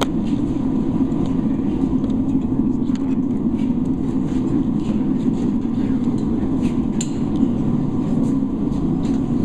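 Steady low mechanical rumble, with faint scattered clicks and knocks above it.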